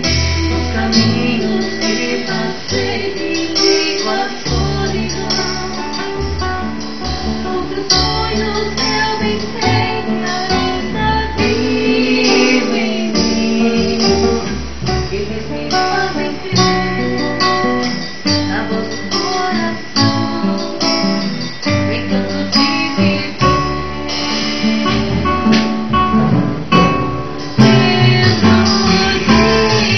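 A band playing a song: strummed acoustic guitar over a moving bass line, with some singing.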